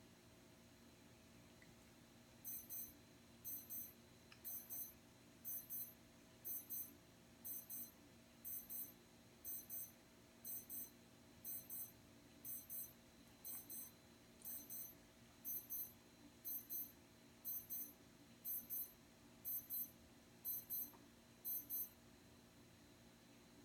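Electronic alarm beeping in double beeps, about one pair a second, starting a couple of seconds in and stopping shortly before the end.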